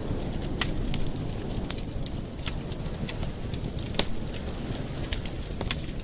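Campfire burning: a steady low rumble of the flames with irregular sharp crackles and pops of the burning wood.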